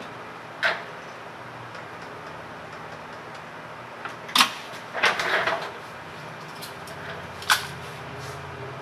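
A few sharp clicks and knocks of tools and equipment being handled at an electronics repair bench: one about a second in, a loud one and a short cluster around the middle, and one near the end, over a steady low hum.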